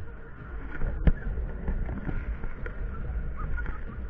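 Sobema Popcorn Party funfair ride running with riders aboard: a steady low rumble of the spinning gondola, with a sharp knock about a second in.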